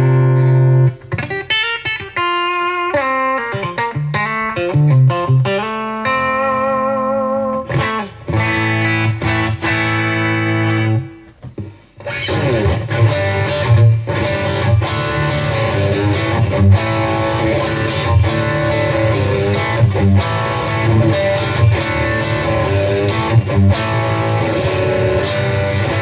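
Green Masterseries Telecaster-style electric guitar with Lundgren Tele90 bridge and Vertigo neck pickups, played with a pick. Single notes and chords with some vibrato for about eleven seconds, a brief pause, then busier strummed chords mixed with picked notes.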